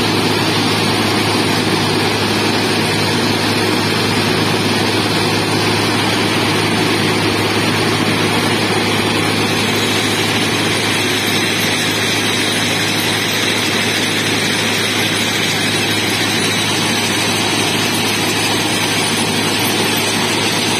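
Diesel engines of an FRM-85F railway formation rehabilitation machine running steadily, with a constant low hum, as the machine moves slowly past.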